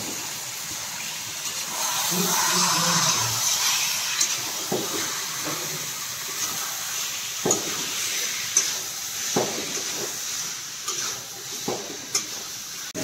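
A steady hiss with scattered clinks and knocks of kitchen pots and utensils.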